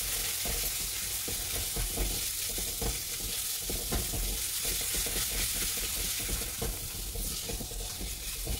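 Onion-tomato masala with chilli, turmeric and fennel powder sizzling in oil in a steel kadai, with a spatula stirring and scraping it across the pan in irregular strokes. This is the masala being fried until the oil separates.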